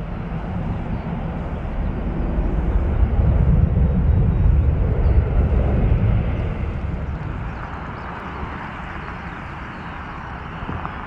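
Airbus A330-300 twin-jet airliner on its takeoff roll with engines at takeoff thrust: a loud, deep jet rumble with a hiss above it. It swells to its loudest around the middle, then eases slightly as the aircraft moves away along the runway.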